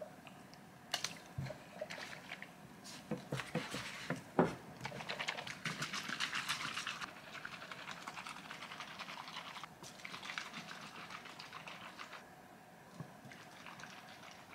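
Makgeolli sloshing inside a plastic bottle as it is turned upside down and rocked to mix the settled rice sediment, with irregular clicks and crackles from the plastic bottle being handled and one sharp knock about four and a half seconds in.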